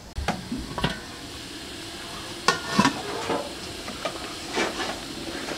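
Steady hiss of steam from an aluminium food steamer on the boil, with several light knocks and clinks of metal.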